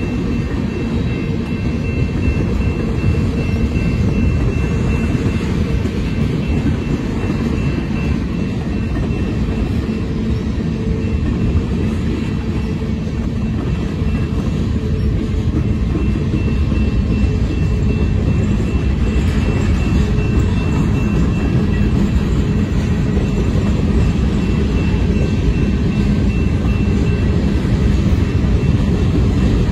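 Freight train cars (gondolas, covered hoppers, a tank car) rolling past, a steady rumble and clatter of steel wheels on rail, with a thin steady high-pitched tone over it.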